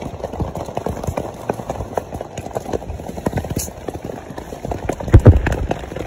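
Heavy rain falling on the tent, heard from inside as many dense, irregular taps, with a louder thump about five seconds in. The rain is heavy enough that the non-waterproof summer tent is leaking.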